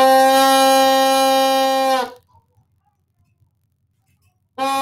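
Bassoon reed played on its bocal alone, sounding a long, steady, buzzy note held at one pitch for about two seconds, then a second identical held note starting near the end. The unchanging pitch shows a face and embouchure kept still through the note.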